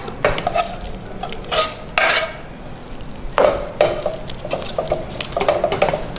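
Metal ladle stirring and scraping through thick, wet rice and lentils in a pressure cooker, in uneven strokes with several louder ones.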